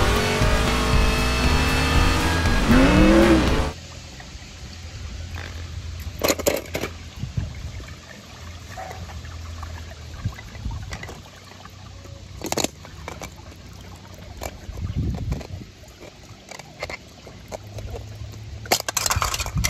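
Race-car engine sound from an animated film clip for about four seconds, with a rising and falling glide near its end, cutting off suddenly. Then quieter wet handling: a pool skimmer net and wet clear plastic capsule eggs being handled, with water sounds and a few sharp clicks and taps.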